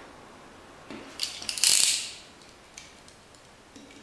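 Clicks and a brief clatter of hand tools being handled, loudest just before halfway, as a yellow snap-off utility knife is taken up from among the pliers and its blade clicked out, then a few faint ticks.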